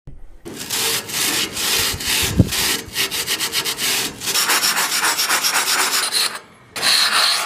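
An abrasive scouring pad is scrubbed back and forth over a rusty cast iron grill grate to rub off the rust. The strokes quicken about four seconds in. A single sharp knock comes about two and a half seconds in, and the scrubbing breaks off briefly near the end.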